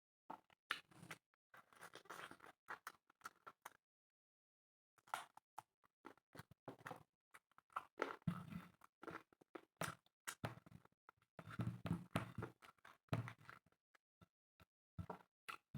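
Close-up eating sounds of spicy chicken and rice: wet chewing and mouth smacking in irregular short bursts, with a pause of about a second a little before the midpoint.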